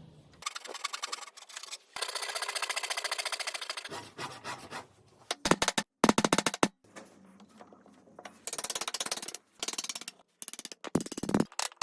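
Woodworking tool noise: several bursts of fast, rattling clicks, each lasting one to two seconds, with short pauses between them.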